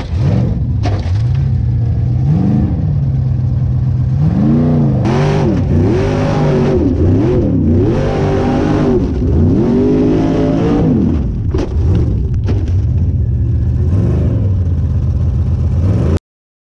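Formula Offroad buggy's engine revving hard under load on a steep dirt hill climb, its pitch surging up and down again and again, with a few sharp knocks. The sound cuts off suddenly near the end.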